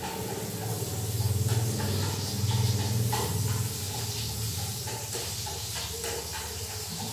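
Food sizzling in a frying pan on a gas stove as it is stirred with chopsticks, a steady hiss, over a low hum that is loudest from about one to three and a half seconds in.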